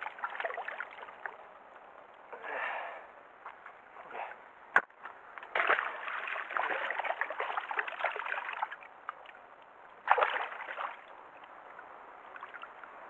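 Water splashing in irregular bursts, with one sharp knock about five seconds in.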